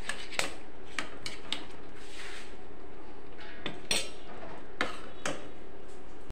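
Metal spoon clinking and scraping against a stainless steel pot as ghee is spooned into kheer: a handful of short, scattered clinks.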